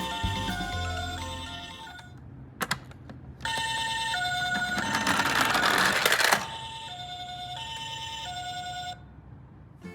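Toy ambulance's electronic two-tone siren sounding a high-low "pee-po" pattern, each tone lasting about two-thirds of a second. It starts a few seconds in and stops near the end, with a rushing noise for about two seconds midway.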